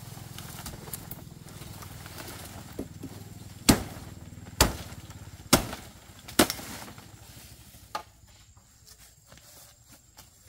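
Machete chopping through jungle undergrowth: four loud, sharp strokes about a second apart in the middle, with a few lighter cuts before them and one more a little later.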